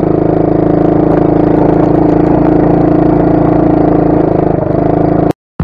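125cc ATV engine running at steady, fairly high revs under throttle, with a slight dip in pitch a little past four seconds in. The sound cuts off abruptly near the end.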